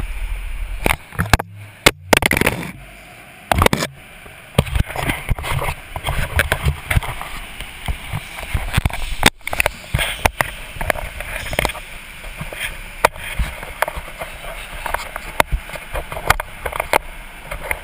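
Rubbing, bumping and knocking of a GoPro camera being handled and jostled, with indistinct voices in the background.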